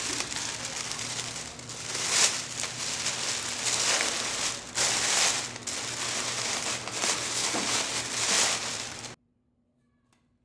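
Wrapping material being handled, crinkling and rustling in irregular surges, cutting off abruptly about nine seconds in.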